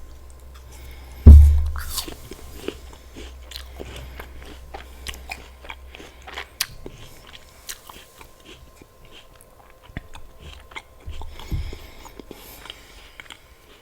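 Close-miked bite into a crisp apple slice with peanut butter: one loud crunching bite about a second in, then crunchy chewing with many small crackles.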